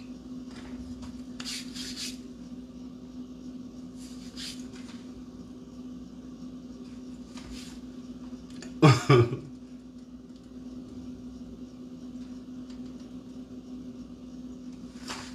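A steady low hum, with a few faint soft rustles and one short voice sound about nine seconds in.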